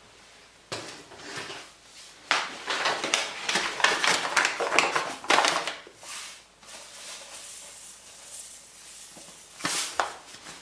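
Sugar being added to salted popcorn in a stainless saucepan: a few seconds of dense rustling and crackling that dies down about two-thirds of the way in, with a single sharp click near the end.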